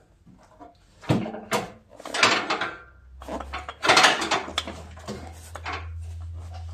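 Metal clanking and scraping from a zero-turn mower deck being pulled forward and its pins worked into their latches: several knocks and scrapes in a row. A low steady hum starts about halfway through.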